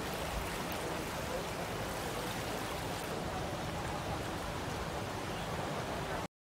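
Floodwater rushing through a flooded street, a steady even noise that cuts off suddenly near the end.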